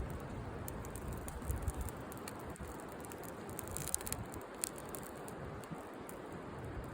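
Campfire burning, with scattered sharp crackles and pops over a steady low rumble.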